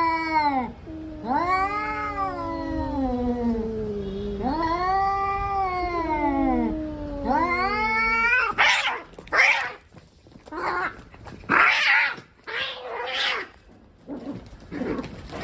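Cat caterwauling: several long, drawn-out yowls that rise and fall in pitch. About eight seconds in, these give way to a run of short, harsh, noisier bursts.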